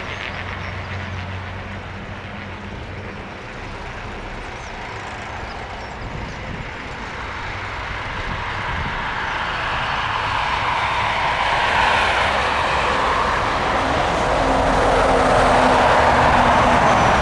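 Beechcraft 1900D twin turboprop landing, its two PT6A turboprop engines and propellers running steadily. The sound grows louder over the second half as the aircraft touches down and rolls close by, and is loudest near the end.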